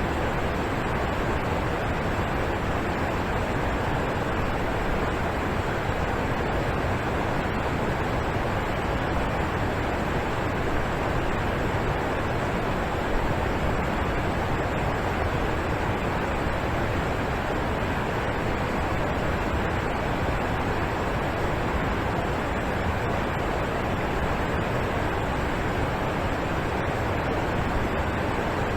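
Alpine waterfall: a steady, unbroken rush of falling water with an even level throughout.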